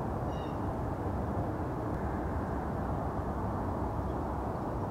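Steady low rumbling outdoor noise, with a short high chirp just after the start.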